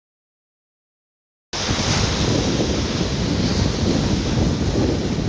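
Silent for about the first second and a half, then sea surf and wind buffeting the phone's microphone: a steady rushing noise with a heavy low rumble.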